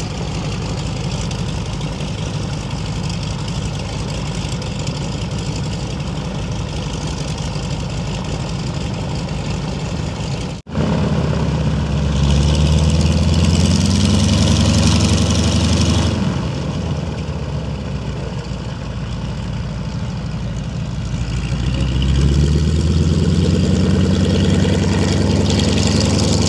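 Vintage propeller aircraft engines running at taxi power, led by the radial engine of a North American T-6 Texan trainer. The sound breaks off briefly about midway, then swells louder, drops back with a falling pitch a few seconds later, and rises again near the end as the planes taxi.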